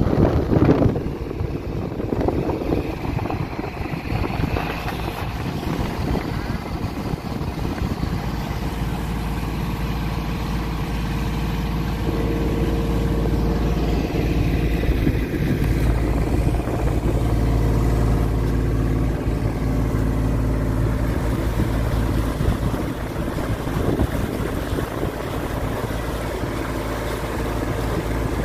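A river ferry's inboard marine engine running steadily under way, a continuous low drone with a steady hum. A brief thump near the start.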